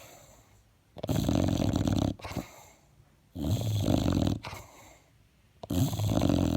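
English bulldog snoring loud: three snores about a second long each, coming roughly every two and a half seconds, with quiet stretches between.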